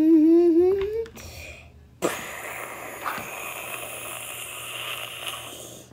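A child voicing monster sound effects: a sustained cry rising in pitch for about the first second, then from about two seconds in a long, raspy hissing breath lasting about three and a half seconds.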